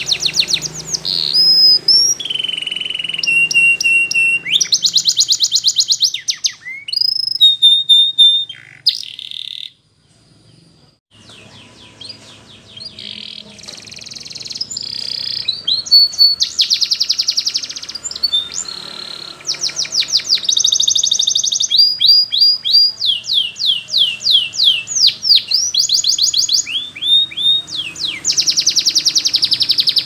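Domestic canary singing a long, varied song: rapid trills of repeated notes, held whistled tones, and runs of quick downward-sweeping notes. The song breaks off briefly about ten seconds in.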